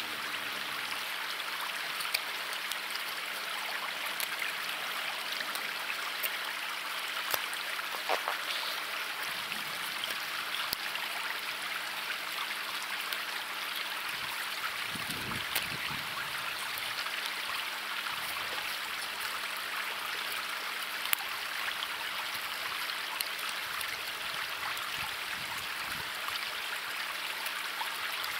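A river rushing over rocks: a steady wash of running water, with scattered faint clicks.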